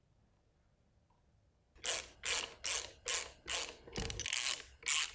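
Hand ratchet with a 1/4-inch hex-bit socket clicking in quick back-and-forth strokes, a burst of pawl clicks about two and a half times a second, starting a little under two seconds in, as it runs a lower-body bolt down to hand snug.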